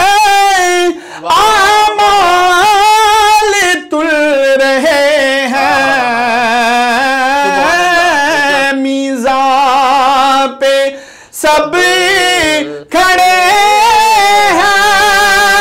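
A man singing a naat unaccompanied, drawing out long ornamented notes with a wavering vibrato and breaking off briefly between phrases.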